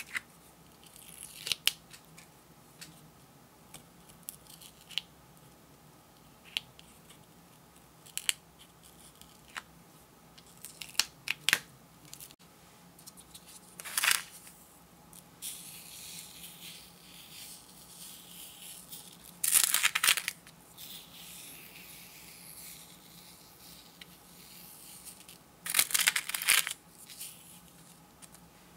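Protective film being picked and peeled off an adhesive sand-art sheet with a metal pick, in short scratchy ticks and small tearing sounds. From about halfway, black craft sand is scooped from a plastic tub with a plastic spoon and sprinkled onto the sticky sheet: a soft hiss with a few louder swishes.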